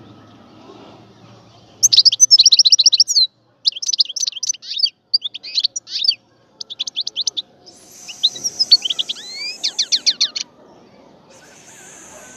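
European goldfinch singing: starting about two seconds in, bursts of rapid, high twittering notes come in quick phrases separated by brief pauses.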